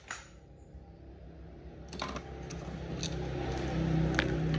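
Light clicks and knocks of a power tool and its rubber power cord being handled and dragged across a tiled floor, under a low hum that grows steadily louder.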